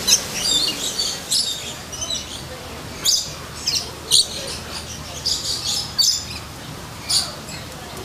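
Lorikeets calling: many short, shrill screeches, irregular and roughly one or two a second, some overlapping.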